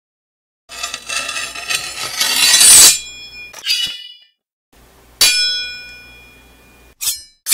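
Produced metallic sound effects: a rising, shimmering swell that stops abruptly, then a single sharp metallic clang that rings and fades, and quick sharp hits near the end.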